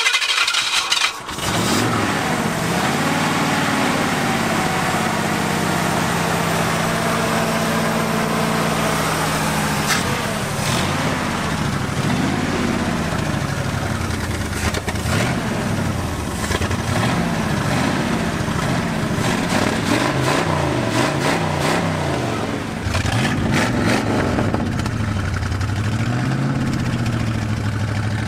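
1979 Ford F-150's 460 V8 on a factory carburetor catching and starting, then running at a held fast idle and revved up and down again and again. It runs lean with the choke held open, and may not be firing on all eight cylinders.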